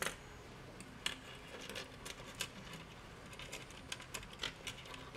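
Small pewter miniature parts (ship masts) clicking and clattering lightly as they are handled and set down on a tabletop: a string of irregular sharp ticks, the sharpest at the very start and about a second in.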